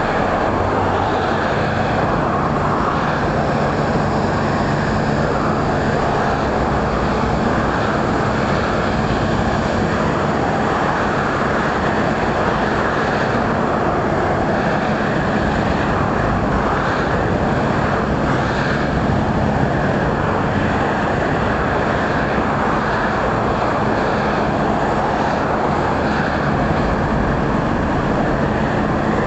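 Steady engine drone with an even rushing noise and a low hum, unchanging throughout.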